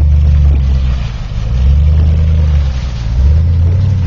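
Chevrolet Avalanche's V8 engine revving hard as the truck is driven through mud, its level surging and easing about three times.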